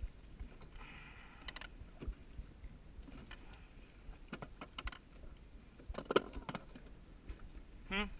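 Rummaging through a boat's storage compartment for gloves: scattered knocks, clicks and rattles of gear being moved about, the loudest knock about six seconds in.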